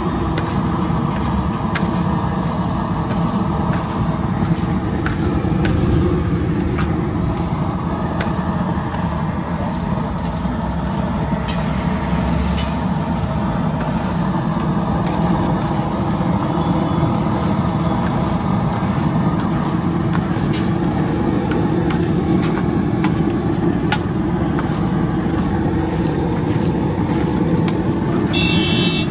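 Steady street traffic rumble of passing cars and trucks, with scattered sharp clicks and a brief high-pitched beep near the end.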